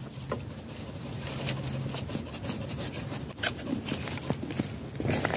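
Rustling and scraping of dry twigs, leaves and loose soil at the mouth of a tegu lizard's burrow, with scattered small clicks and snaps.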